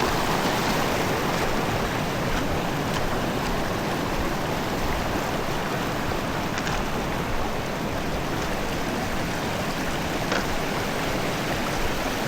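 Rushing water of a braided river running high after heavy rain, a steady, even rush with no break.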